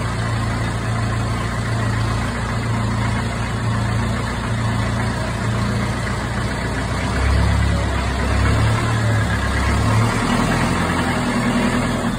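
Vintage grey tractor's engine running steadily. About seven seconds in, its note gets deeper and louder for a few seconds.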